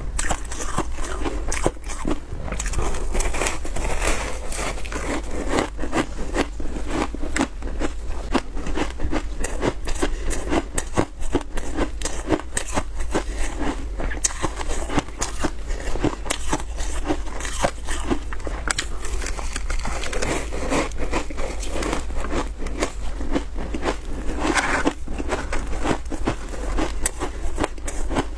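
Biting and chewing a frozen block of shaved ice coated in milk powder, close to the microphone: many crisp cracks and crunches in quick succession as the ice breaks between the teeth.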